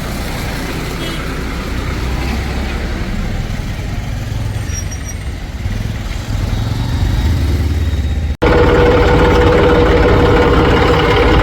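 Heavy diesel engine of earth-moving machinery idling low. After an abrupt cut about eight seconds in, it runs louder with a steady droning hum.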